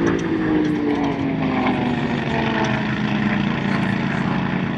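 Piston aircraft engine running. Its pitch falls over the first two to three seconds, then holds steady.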